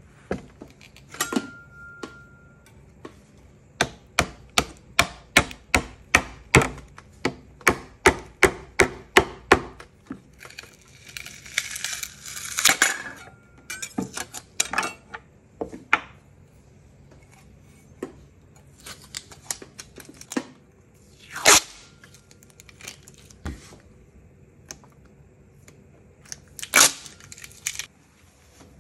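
Rubber mallet tapping a letterpress printing plate down flat onto its base on the press bed: a quick, even run of knocks, about three a second, then a rustle of plastic film and a few scattered single knocks.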